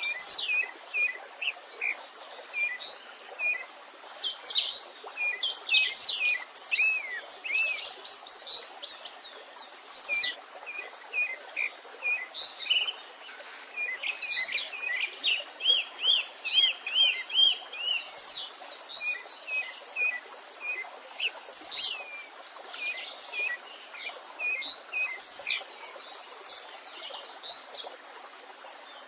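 Several songbirds singing and calling over one another, in short whistled phrases and quick chirps repeated throughout, over the steady rush of a running stream.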